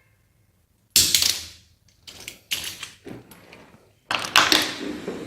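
A plastic and a metal shower door wheel dropped from the same height, landing with sharp clacks and small bouncing clatters. There is a loud clack about a second in, a run of lighter clicks, and another loud clack about four seconds in.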